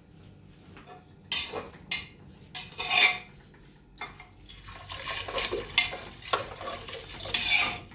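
Water poured from a plastic jug into an aluminium pressure cooker of rice and moong dal, with a metal spoon stirring, scraping and clinking against the pot. There are a couple of short scrapes early on, then a longer stretch of pouring and stirring in the second half.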